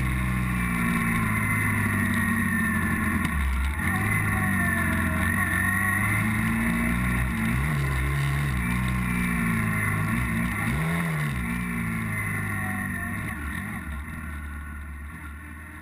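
Yamaha Ténéré motorcycle engine heard from on the bike while riding an off-road gravel track, the pitch rising and falling with the throttle over a wash of wind and road noise. It fades out over the last few seconds.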